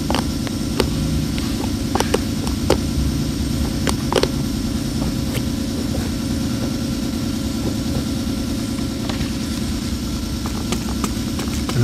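Steady motor drone of an air compressor running to inflate the tire, with scattered sharp clicks as the nut on the sidewall slug repair is cranked down to stop a small leak.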